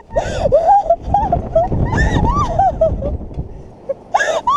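Riders on a swinging, looping thrill ride screaming and shrieking in a string of short high cries, with wind rushing over the microphone as the car moves.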